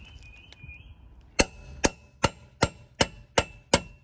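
Ball-pein hammer striking a long metal bar on a wheel-nut socket seven times, about two and a half blows a second, each a sharp metallic clank with a short ring, knocking the front wheel nut tight.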